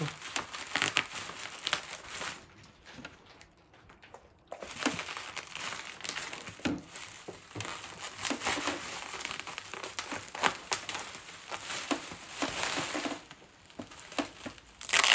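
Bubble wrap being pulled at and cut open with scissors, crinkling and crackling in irregular bursts, with a brief lull about three seconds in.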